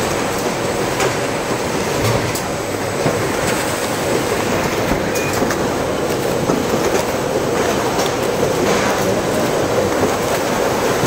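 Automated packaging line running: steady conveyor and machinery noise with a hum, and scattered clicks and clacks.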